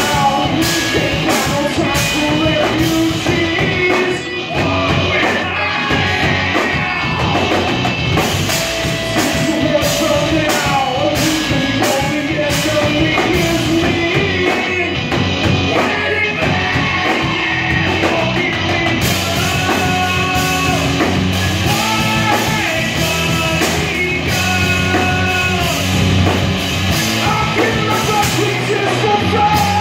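A live rock band plays a song on electric guitars and a drum kit, with steady, loud drumming under the guitar lines.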